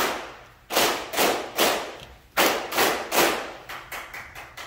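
A group clapping in unison in the Masonic battery of three times three: two groups of three sharp claps, the last group ending about three seconds in. A few weaker, scattered claps follow near the end.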